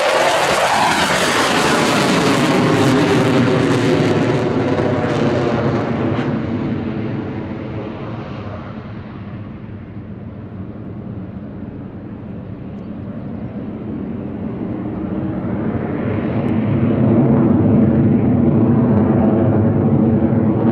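F-22 Raptor's twin F119 turbofan jet engines, loud as the fighter passes close, with a falling pitch just after it goes by. The noise then fades as it climbs away and swells again near the end as the jet comes back around.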